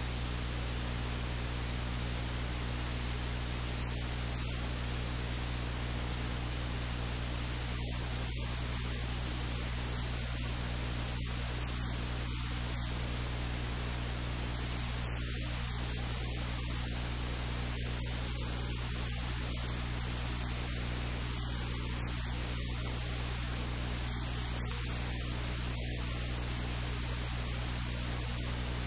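Steady hiss with a low electrical hum throughout: constant recording noise, with no distinct sound standing out.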